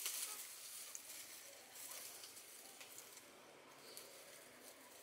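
Faint rustling and crackling of leaves and twigs, with a few small clicks, loudest at the very start.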